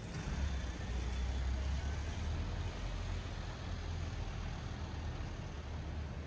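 City road traffic: a motor vehicle's low engine rumble going by, loudest in the first few seconds, over steady street noise.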